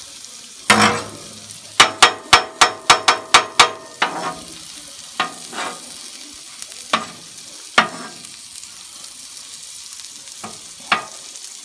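Metal spatula striking and scraping a steel flat-top griddle over the steady sizzle of a burger patty and small potato rounds frying. One sharp ringing clank comes early, then a quick run of about eight ringing taps at roughly four a second, then scattered single taps and scrapes.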